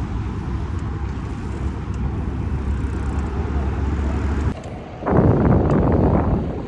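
Wind rumbling on the microphone of a moving bicycle, with city traffic in the background. The rumble drops away suddenly about four and a half seconds in, and a louder rough rush follows for about a second and a half near the end.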